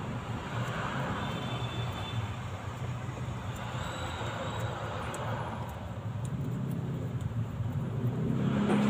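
Motor vehicle noise: a steady low engine hum under a rushing sound that swells and fades a few times.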